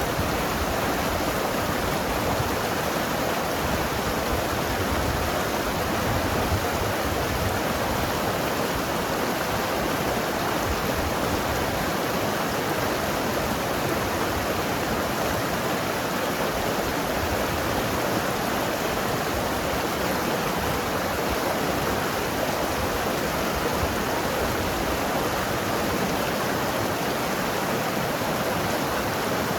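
Mountain river flowing and tumbling over rocks: a steady, continuous rush of water with gurgling.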